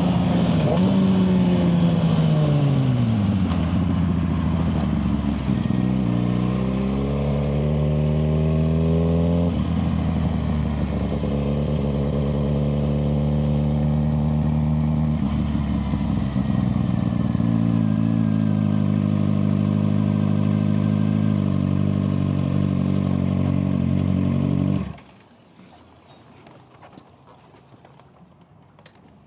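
Suzuki GSX-R 600 inline-four engine under way: it slows with falling revs, then pulls away with revs climbing in steps through the gears, and runs at a steadier pitch. It shuts off suddenly near the end, leaving quiet.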